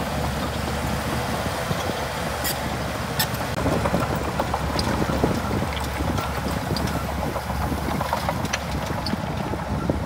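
Shantui DH17C2 bulldozer's diesel engine running steadily, with scattered short sharp cracks and clicks over it.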